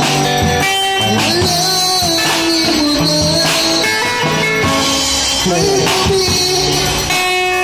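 Live street music: a drum kit with cymbals played along with guitar-led music through a portable amplifier speaker.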